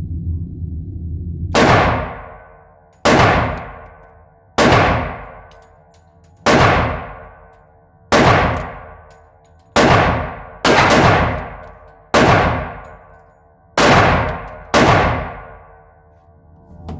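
Ten shots from a Glock 20 10mm pistol, fired deliberately about one to one and a half seconds apart, each followed by a ringing echo that dies away over about a second.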